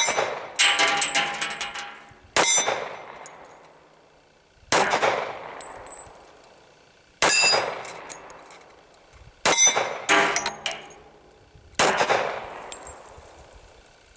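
Ruger SR1911 .45 ACP pistol firing seven single shots, the first two about half a second apart and the rest every two to two and a half seconds, each dying away in a fading echo. After some shots comes the ringing of a struck steel plate target.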